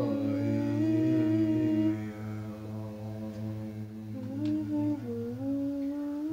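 Group humming and chanting: long held voice tones over a steady low drone, the higher line gliding slowly between pitches. It gets quieter about two seconds in.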